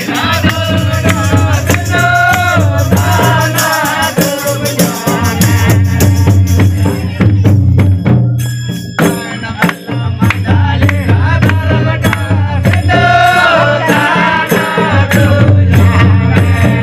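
Mundari devotional song (bhajan) with singing over jingling hand percussion and a drum keeping a steady beat. The singing stops for several seconds in the middle while the percussion plays on, then comes back near the end.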